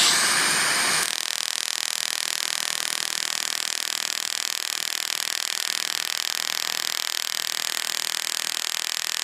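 Erbium YAG laser (Fotona SP Dynamis, R08 handpiece) firing a rapid 40 Hz pulse train in SP mode while ablating a seborrheic keratosis from the skin: a steady, fast-pulsing hiss. A louder hiss fills the first second.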